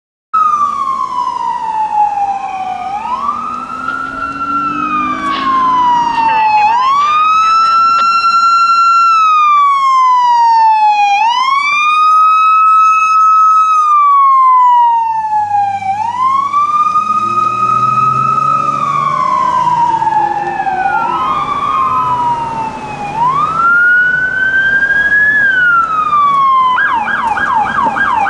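Police car electronic sirens on wail, rising and falling about every four to five seconds, with a second siren overlapping at times. About a second before the end a siren switches to a fast yelp.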